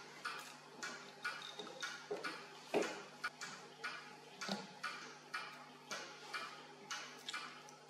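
Clock-like ticking, roughly two ticks a second, over a faint steady hum.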